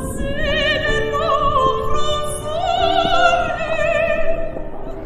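Operatic singing with orchestral accompaniment: a single voice with wide vibrato holding long notes over sustained instruments.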